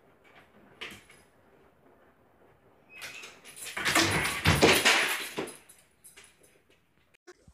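A large dog leaping up onto a kitchen counter: a loud scrabbling clatter that starts about three seconds in and lasts about two seconds.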